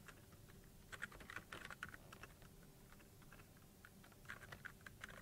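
Faint typing on a computer keyboard: quick runs of key clicks about a second in and again near the end.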